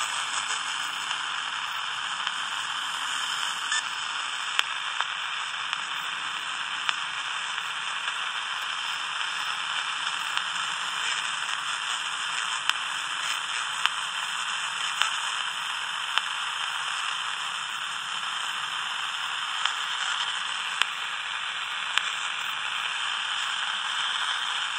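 Steady radio static hissing from the speaker of a Danita 86 six-channel radio tuned to an empty channel, with faint scattered clicks.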